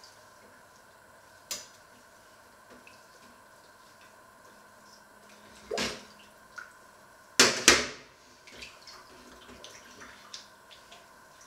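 Washing up at a kitchen sink: dishes and utensils clink and clank with a little water. The loudest two clanks come close together about seven and a half seconds in.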